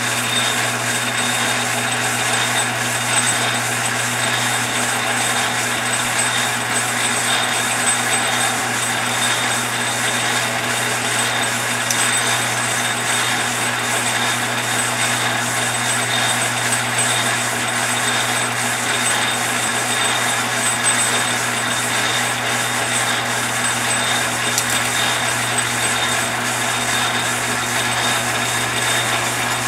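Metal lathe running steadily, turning a slender brass rod between the chuck and the tailstock centre. It gives a constant motor and gear hum with a thin, steady high whine.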